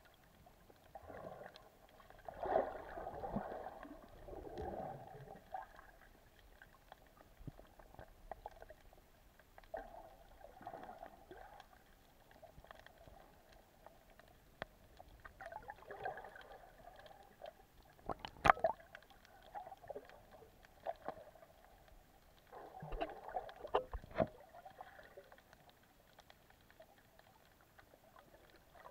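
Muffled water sloshing and gurgling as heard by a camera held underwater, swelling and fading in uneven bursts, with one sharp click about eighteen seconds in.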